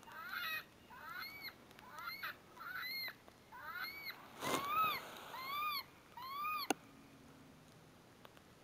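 Electronic predator call (Lucky Duck Revolt) playing an animal distress sound: a run of short squealing cries, about one every 0.7 s, each rising and then falling in pitch. A brief hiss of noise comes near the middle, and the calling cuts off with a sharp click about two-thirds in.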